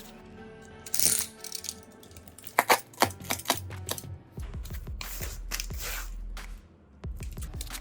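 Background music with several sharp clicks and clinks of small hard objects on a hard surface, clustered about two and a half to three and a half seconds in. A low rumbling handling noise with more clicks follows until near the end.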